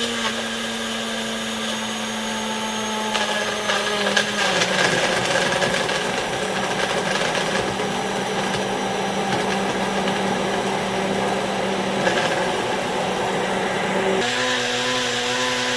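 Countertop blender running steadily, blending fruit, ice cream and milk into a smoothie. Its motor hum drops slightly in pitch about four seconds in and rises back again near the end.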